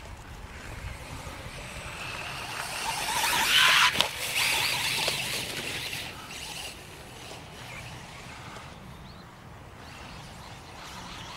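Losi 1/4-scale electric brushless RC motorcycle driving over rough grass. Its motor and drivetrain noise swells to its loudest about four seconds in, with a single sharp click at the peak, then fades away.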